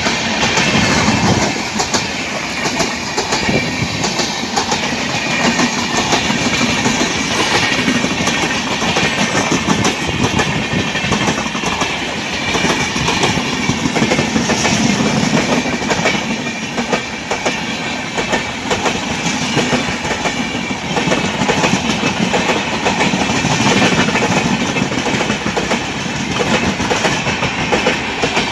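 Passenger coaches of an express train passing close at speed: a steady loud rush with the rapid clatter of wheels over rail joints.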